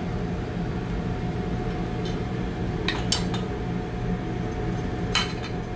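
A few light clinks of a spoon against a small metal bowl, about two, three and five seconds in, over a steady kitchen hum with a faint constant whine.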